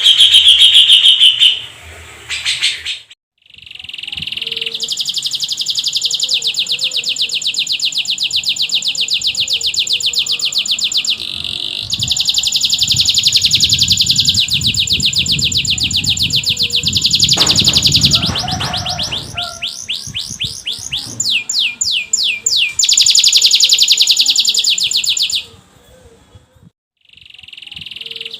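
Domestic canary singing long, rapid rolling trills, several seconds each with short breaks, at one point broken into a run of quick downward-sweeping notes. A brief low rumble sounds beneath the song about two-thirds of the way through.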